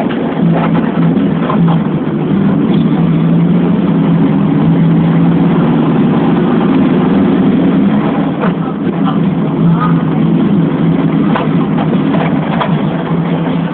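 An old van's engine running steadily while the van is driven, heard from inside the cabin, with road noise and a few short knocks and rattles.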